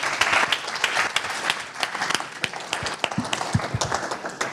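Audience applauding, many hands clapping at once, thinning out and dying away near the end.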